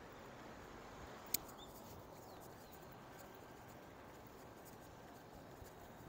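Faint, steady background noise of a city street, with one sharp click a little over a second in and a few fainter ticks.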